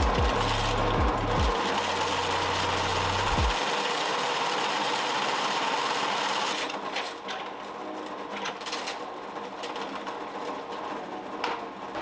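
Drill press running, its bit boring out the centre of a nut clamped in a machine vise: a steady motor and cutting noise that gets quieter about six and a half seconds in.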